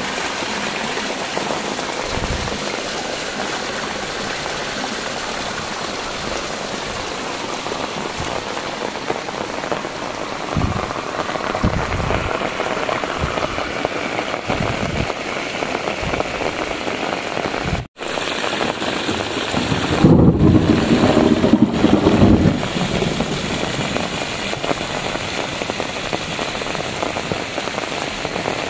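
Heavy rain falling steadily, with water gushing from a drain pipe at first. About twenty seconds in, a louder low rumble lasts a couple of seconds.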